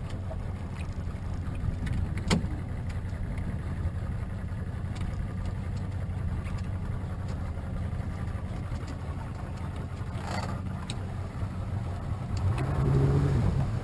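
Small outboard motor running at low speed with a steady low hum. There is a sharp click about two seconds in, and a brief, louder low rumble shortly before the end.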